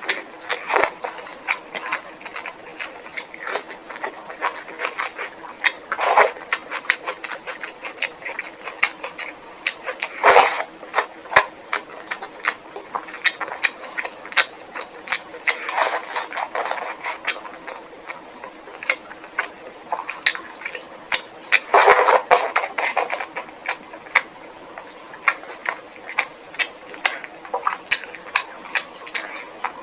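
Close-miked mouth sounds of a person eating: steady chewing with many quick wet clicks and smacks, and a few louder, denser bursts of chewing now and then.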